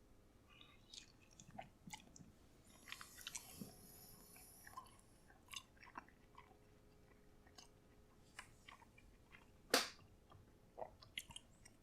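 A person chewing a bite of microwaved chicken from a TV dinner: faint, close mouth sounds with scattered small clicks, and a sharper click near the end.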